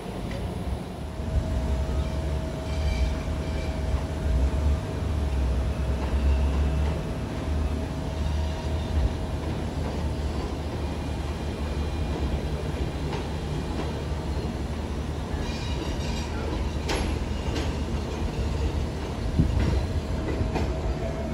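R160 New York City subway train running into an elevated station on steel track, with a heavy low rumble and a steady hum. A few sharp clicks from the wheels come near the end as it draws close.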